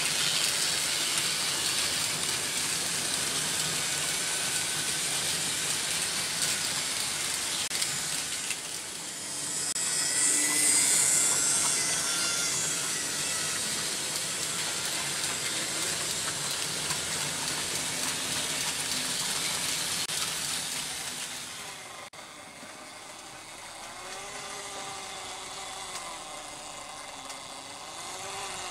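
Vintage Märklin H0 model trains running on stamped-steel M-track: a steady metallic rattle of wheels rolling over the rails and joints, swelling briefly about ten seconds in. About 22 seconds in the sound drops to a quieter running noise, with a locomotive motor's whine rising and falling.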